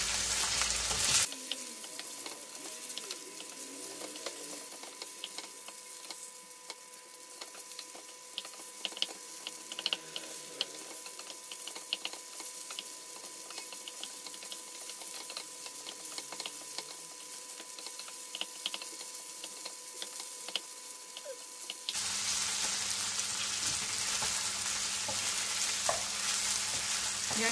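Cornflour-coated boneless chicken pieces sizzling in shallow oil in a nonstick frying pan, stirred and turned with a wooden spatula, with scattered small pops and taps. The sizzle drops a little about a second in and grows louder again for the last few seconds.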